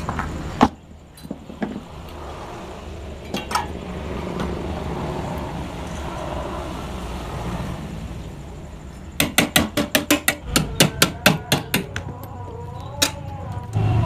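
Rapid hammer blows on metal, about six a second in a quick run of some fifteen strikes in the last third, after a few scattered single knocks, while a motorcycle exhaust muffler is being knocked open.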